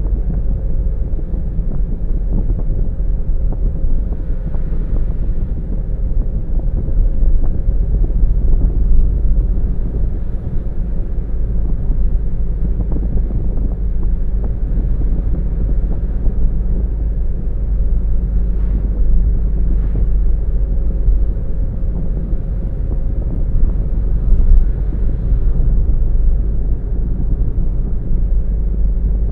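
Car driving along a road: a steady low rumble of tyre and engine noise with no change in pace.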